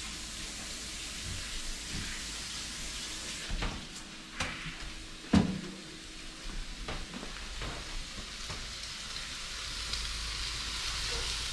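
Shovelnose shark steak sizzling in hot olive oil in a pan: a steady frying hiss that grows a little louder near the end. A few sharp knocks of handling in the kitchen cut through it, the loudest about five seconds in.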